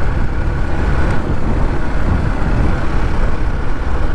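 Yamaha FZ-V3 motorcycle's 149 cc single-cylinder engine running steadily while cruising at about 56 km/h, mixed with steady road and wind noise.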